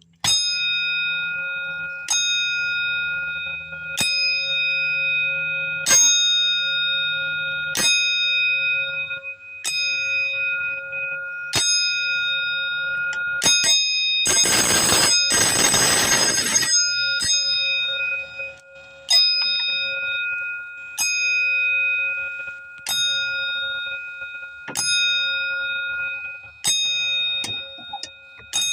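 Fire alarm bell struck once about every two seconds, each strike ringing on. About halfway through, a loud, harsh continuous alarm sound cuts in for about two seconds, then the single strikes carry on.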